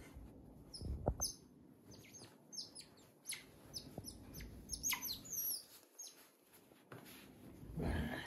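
Pet otter giving many short, high chirps and squeaks while it burrows into bedding. Louder rustling of the bedding comes about a second in and again near the end.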